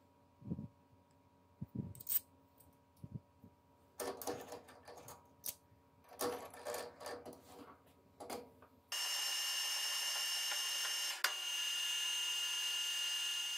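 Metal clinks and clatter as a threaded stud is handled and clamped in a metal lathe's chuck. About nine seconds in, the lathe starts abruptly and runs steadily with a whine, the chuck spinning the stud, with one sharp click partway through.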